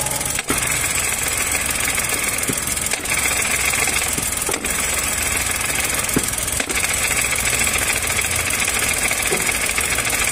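Chevrolet Onix three-cylinder engine idling, heard from under the car beside the gearbox, as the clutch pedal is let out. A high noise from the clutch and gearbox area comes in about three seconds in and again near the end. The noise goes away with the pedal pressed; here it is caused by an aftermarket Helper clutch, though it is typical of a gearbox fault.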